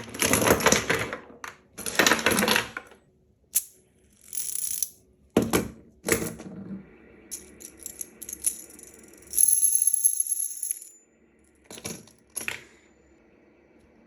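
Metal EDC fidget toy being worked in the hand: bursts of metallic clicking and jingling with short pauses between them. About nine and a half seconds in, a high, clear metallic ring lasts a little over a second.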